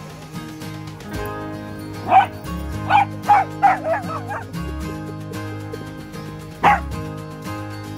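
A dog barking: a single bark about two seconds in, a quick run of about five barks a second later, and one last bark near the end, over background music.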